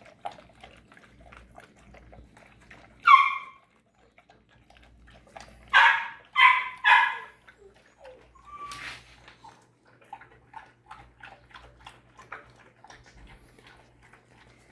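A dog chewing and crunching soaked kibble from a stainless-steel bowl, with many small clicks throughout. Another dog barks once about three seconds in, then three times in quick succession around six seconds in, and once more, weaker, near nine seconds.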